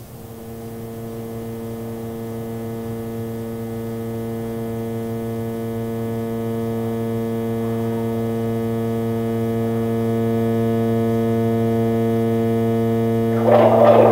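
Experimental electronic noise music: an amplified drone holding one pitch with many overtones, slowly swelling louder. A harsher, gritty noise layer comes in on top near the end.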